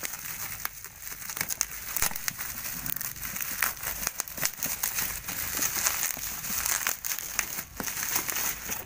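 Bubble wrap crinkling and crackling as hands handle it and pull it off a cardboard box, with many irregular sharp crackles throughout.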